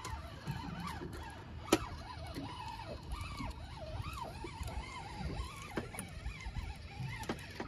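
Spinning reel being cranked against a heavy fish on a bent rod: a faint wavering whir over a low rumble, with a sharp click nearly two seconds in.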